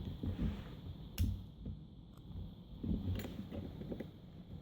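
Handling noise from a small padlock and its lock picks: a few soft knocks and two sharp metallic clicks, about a second in and about three seconds in.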